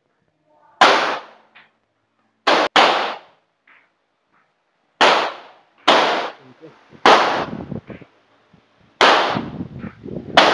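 HS-9 9mm pistol firing a string of single shots, about eight at uneven intervals, two of them about a quarter-second apart, each sharp crack trailing off briefly.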